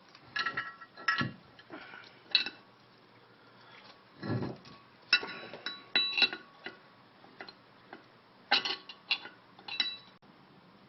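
Hammer blows on steel, knocking an old wheel bearing race out of a Mercedes W203 front hub: sharp metallic strikes with a short ring, in irregular clusters of several hits.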